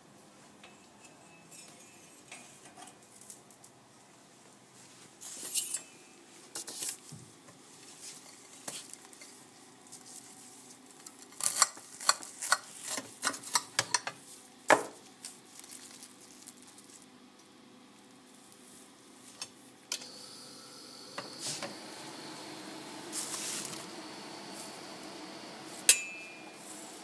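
A knife clinking and scraping on a ceramic plate while a toasted sandwich is cut, as a run of sharp clicks through the middle. From about two-thirds in, the steady running noise of the infrared conveyor toaster comes in, with one sharp metallic clink near the end.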